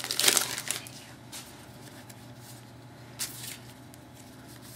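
Trading card pack wrapper crinkling as a pack is handled and opened, loudest in the first second, then a couple of faint brief rustles of cards being handled.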